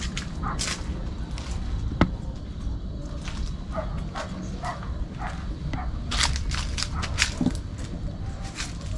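Footsteps and rustling on rough ground, with a sharp click about two seconds in, over a low wind rumble. A few faint, short distant calls come through, which the group takes for children and dogs.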